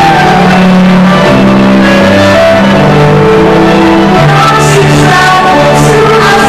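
Loud live music from a stage show: a song with a singer over instrumental accompaniment, with long held notes and a moving bass line.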